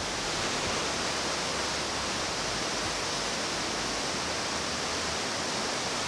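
Steady rushing noise of water pouring over a large waterfall, even and unbroken.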